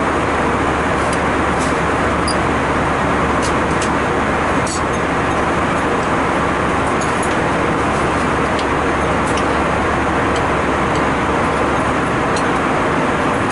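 Steady rushing cabin noise of an airliner in flight, the jet engines and airflow, with a few faint light clicks scattered through it.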